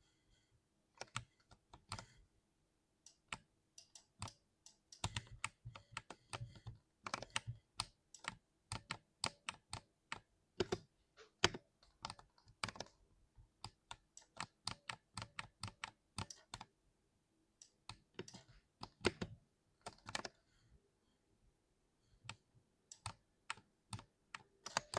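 Keys of a compact 60% mechanical keyboard being typed on, clicking in quick irregular runs with short pauses between them.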